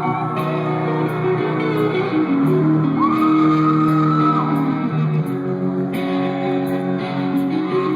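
Live rock band playing an instrumental passage in a large hall, with sustained electric guitar and bass notes; about three seconds in, a high lead note slides up and is held for over a second.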